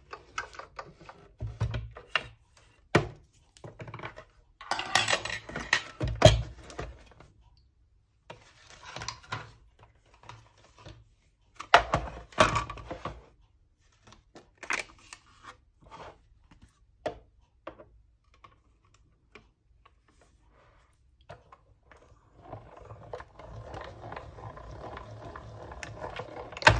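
Hand-cranked die-cutting machine being set up and used: its fold-out platforms and acrylic cutting plates knocked and clicked into place with a series of separate knocks and short clatters, then in the last few seconds the crank turning and rolling the plate sandwich through the machine with a steady rolling noise.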